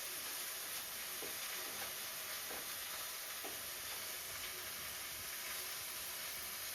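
Steady high hiss, like a recording's noise floor, with a few faint soft sounds around one, two and a half and three and a half seconds in.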